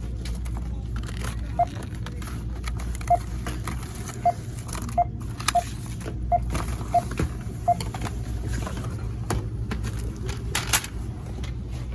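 Checkout barcode scanner beeping eight times at uneven intervals as items are rung up, over a steady low hum and light rustling.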